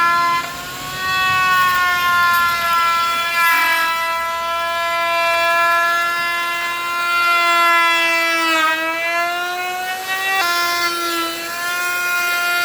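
Electric power tool's motor running at high speed, a steady whine that dips and shifts in pitch a few times, as when the tool is loaded by the cut.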